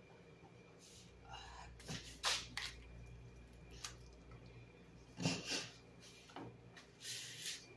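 Hand-moving chunks of roast pork in a wok: a handful of short rustles, scrapes and knocks as the meat pieces are shifted and pressed, the loudest about five seconds in and a brief hissy rustle near the end.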